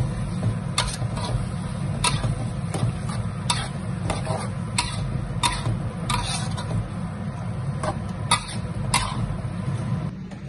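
Metal spoon stir-frying onions, ginger and tomato in a steel wok, clinking and scraping against the pan at an uneven pace of about one knock a second, over a steady low rumble.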